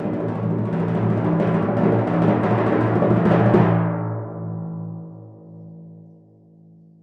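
Timpani roll: rapid strokes on the drumhead, swelling slightly for about three and a half seconds, then stopping while the drum rings on at a low pitch and fades away.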